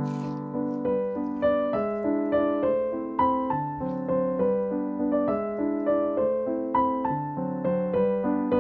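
Background piano music: a steady run of notes with a regular beat.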